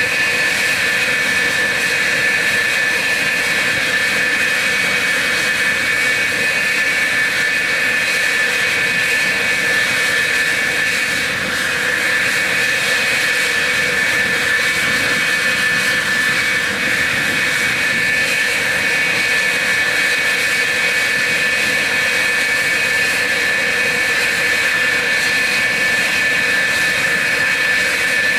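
F-4F Phantom's General Electric J79 turbojet engines running steadily: a loud, even jet rush with a constant high whine on top.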